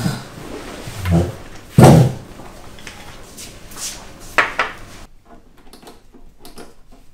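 A few knocks and scrapes of a dining chair and tableware as someone gets up from a dinner table, the loudest about two seconds in, followed by lighter clinks. Near the end only faint light taps remain.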